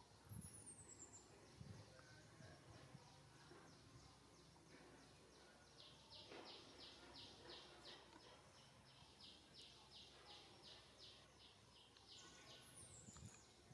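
Faint outdoor wildlife ambience: a high, thin chirp repeated about four times a second, strongest in the middle, with a quick falling high whistle at the start and again near the end.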